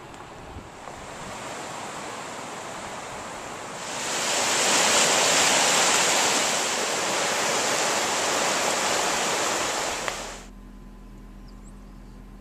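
Fast mountain river rushing over rocks: a loud, steady rush of water. It swells in about four seconds in and cuts off suddenly near the end, leaving a much quieter background.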